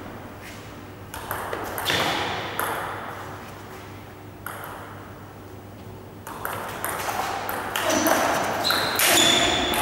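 Table tennis ball clicking sharply off the bats and the table in a rally, the hits coming in two busy spells with a lull between them.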